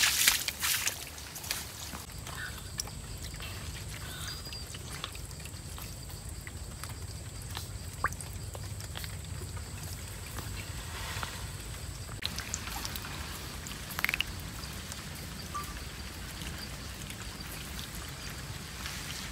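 Faint outdoor background with a steady low rumble. A thin, steady high whine runs for the first twelve seconds or so. Scattered small clicks, and a short rising chirp about fourteen seconds in.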